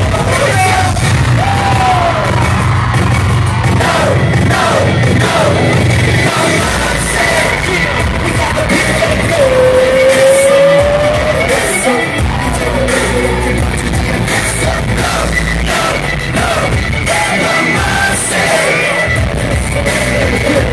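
Loud live K-pop music: a boy group singing and rapping over a heavy, bass-driven backing track, heard from within the concert crowd. About halfway through a voice holds a long, slightly rising note.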